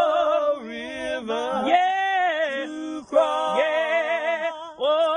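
Unaccompanied gospel singing of a spiritual, voices drawing out long, sliding notes between the sung lines.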